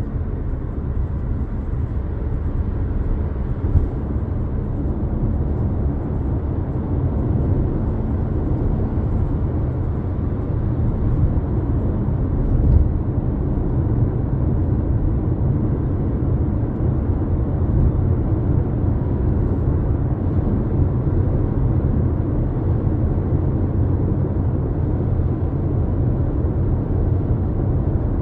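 Steady low road and engine rumble of a 2022 Jeep Compass Latitude being driven, with its 2.4-litre four-cylinder, heard from inside the cabin. There is a brief low bump about 13 seconds in.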